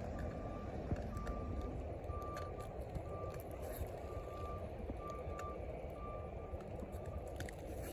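A vehicle's reversing alarm beeping, a steady high tone about once a second, eight beeps that stop near the end, over a steady low rumble.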